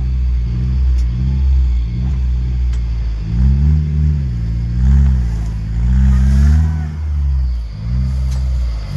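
Car engine revved in repeated surges, rising and falling in pitch about once a second, as an off-road vehicle works its way over rough, muddy ground.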